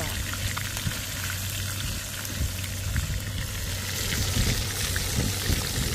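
Whole perch frying in oil in a pan: a steady sizzle with frequent small crackling pops. A steady low hum runs underneath.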